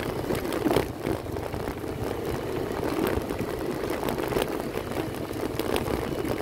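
Motorcycle engine running steadily while riding over a rough gravel and dirt road, with a few sharp knocks and rattles from the bumps.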